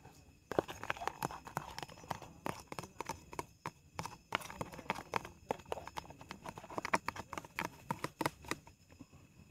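Irregular clicks and knocks of a plastic food container being tapped and shaken against a frying pan as tiwul is emptied from it into the pan.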